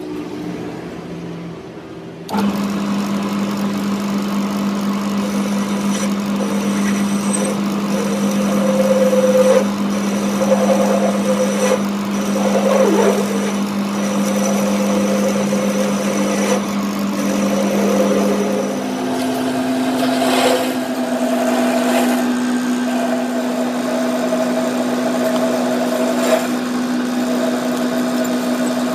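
Workshop machine's electric motor starting up suddenly about two seconds in and running with a steady hum, its pitch stepping up a little about nineteen seconds in.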